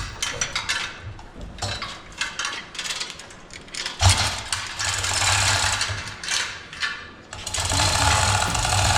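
Rapid mechanical rattling in two long bursts starting about four seconds in, with scattered sharp metal clicks before them, during work on getting the truck's transmission out.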